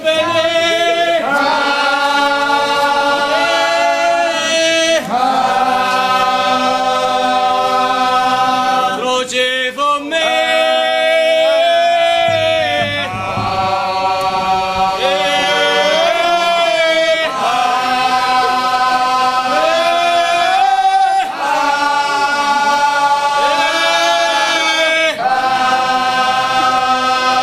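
Group of voices singing a slow unaccompanied procession chant in long held phrases, with short pauses for breath between them.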